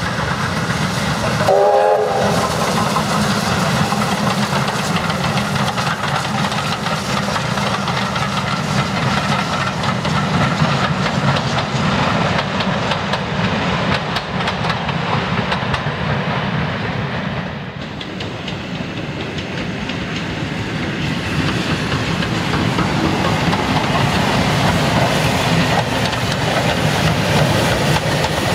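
A steam locomotive's whistle sounds briefly about two seconds in. Then a steam-hauled passenger train runs past, its wheels clattering over the rails. The train noise dips for a moment past the middle and then builds again.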